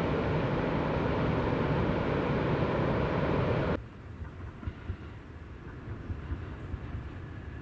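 Steady rush of surf breaking on the beach, cutting off abruptly about four seconds in to a much quieter low rumble of a distant electric local train pulling away from the station.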